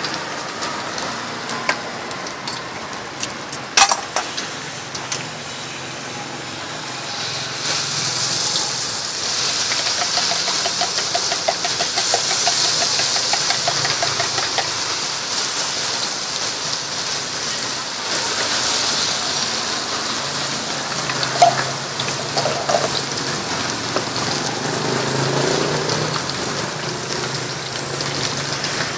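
Food deep-frying in a large pot of hot oil: a sizzling hiss that grows loud about seven seconds in as a fresh batch goes into the oil and bubbles hard, with a sharp knock about four seconds in.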